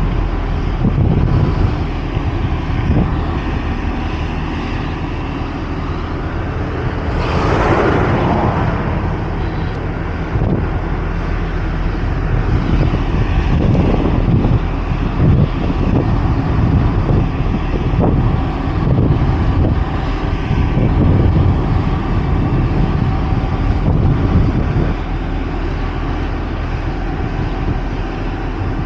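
Steady drone of heavy diesel engines running at an asphalt paving site, with a brief rushing whoosh about seven seconds in.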